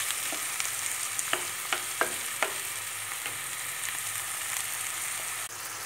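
Chopped tomatoes and onions sizzling in olive oil in a granite-coated pan, with a spoon clicking and scraping against the pan as they are stirred. The clicks come thick in the first two and a half seconds, then thin out under the steady sizzle.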